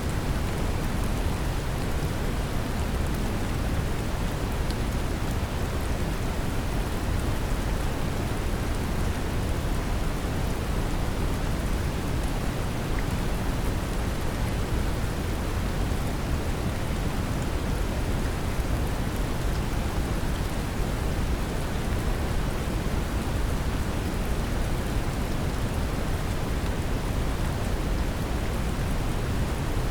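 Steady brown noise with gentle rain layered over it: a deep, even rumble under a constant hiss of falling rain with faint drop ticks.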